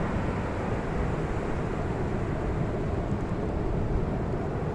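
Steady wash of ocean surf at the shore, mixed with wind rumbling on the microphone.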